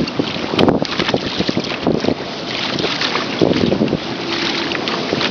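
Wind buffeting the microphone, with water sloshing and splashing against a kayak's hull in swells now and then.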